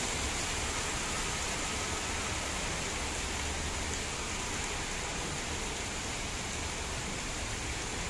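Heavy monsoon rain pouring steadily onto trees, grass and standing water: a dense, even hiss with a low rumble underneath.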